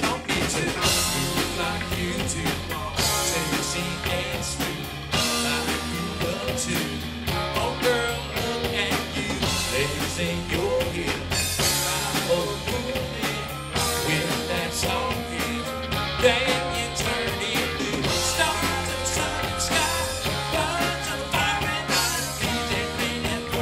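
Live band playing electric guitars, bass guitar and drum kit together, with vocals at times.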